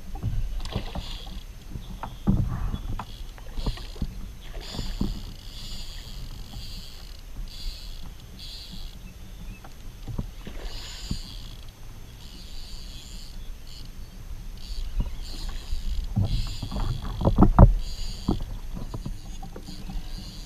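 Fighting a fish from a Hobie fishing kayak: a steady low rumble of water and wind against the hull and microphone, scattered knocks on the hull, and on-and-off high buzzing from the fishing reel. A quick run of sharp knocks and splashes about sixteen to eighteen seconds in is the loudest part.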